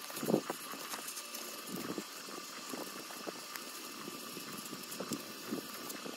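Hand sanding of a brake caliper piston with 600-grit sandpaper worked around it in circles to take off rust: soft, irregular rubbing and scratching, with a few light handling knocks.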